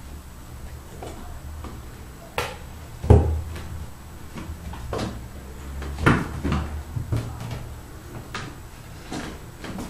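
A string of light knocks and thumps as kittens climb and jump onto a cloth-covered box, the loudest about three seconds in.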